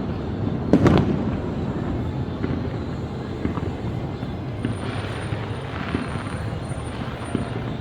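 Fireworks display: one loud bang about a second in, then a continuous low rumble with scattered faint pops.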